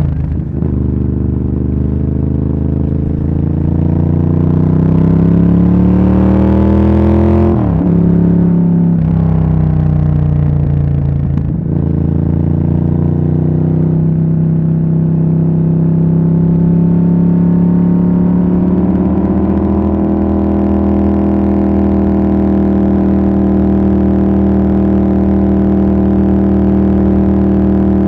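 Ducati Monster S4R's L-twin engine pulling hard under acceleration, its pitch climbing, with two quick gear changes, then settling into a steady cruise at a nearly constant pitch.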